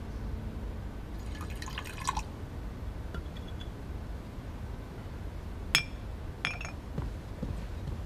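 Wine poured from a bottle into a stemmed wine glass, a short gurgling pour whose pitch rises as the glass fills, about a second in. Two sharp, ringing glass clinks follow a few seconds later.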